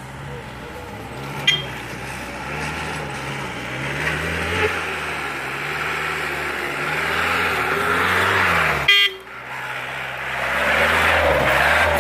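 Off-road jeep's engine revving up and down under load as it climbs a dirt slope, growing louder as it comes closer, with a sharp click about a second and a half in and another near nine seconds.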